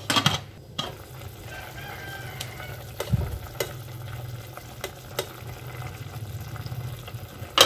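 Chicken adobo sauce simmering in an uncovered stainless steel pot, with a metal spoon clinking and scraping against the pot as sauce is scooped up, over a steady low hum. A loud clatter of metal comes at the very end.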